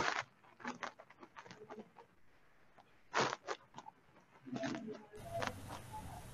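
Scattered faint rustles and clicks close to a microphone, with no speech. About five seconds in, a steady low hum and hiss comes in.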